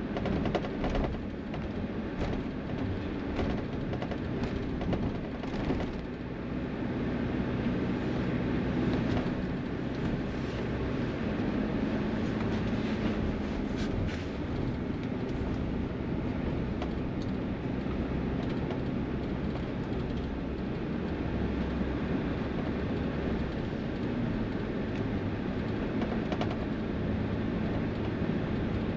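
Highway traffic: heavy vehicles running past with a steady engine rumble and tyre noise, with scattered sharp clicks in the first few seconds.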